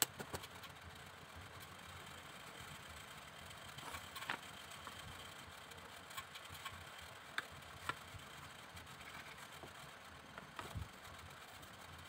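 A few scattered light clicks and taps of bamboo pieces knocking together as a drilled bamboo rail is handled and fitted into a bent bamboo cage frame, over a faint steady background hum.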